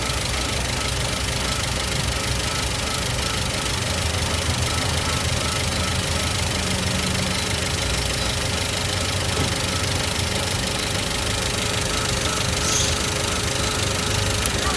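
Toyota Avanza 1.3-litre four-cylinder engine idling steadily, with the ignition leak sound the mechanic is tracing: sparks leaking from the ignition coil shared by cylinders 2 and 3, a fault that makes those cylinders misfire.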